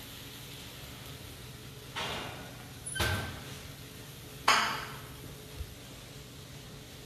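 Dishes and cookware knocked about on a kitchen counter as plating begins: three clattering knocks, about two, three and four and a half seconds in, the last the loudest with a short ring.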